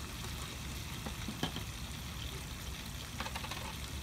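Garlic, shallots, chili and shrimp sizzling in oil in a pan: a steady hiss over a low rumble. A utensil clinks against the pan about a second and a half in, and again in a few quick clinks near three seconds.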